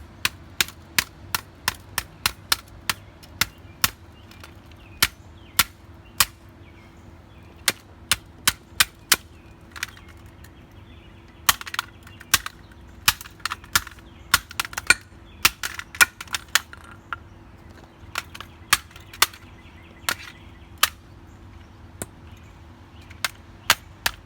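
Repeated sharp hammer blows striking a plastic TV remote control, coming in runs of quick strikes with short pauses between them.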